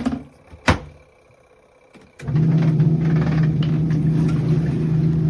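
Two sharp clicks, then about two seconds in a portable twin-tub washing machine's motor starts and runs with a steady low hum.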